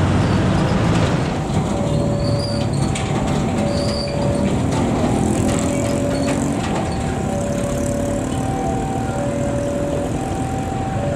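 Railway level-crossing warning alarm sounding as a train approaches: two electronic tones, one higher and one lower, taking turns about once a second, starting about a second and a half in. Underneath it is a steady low rumble of traffic and the approaching diesel locomotive.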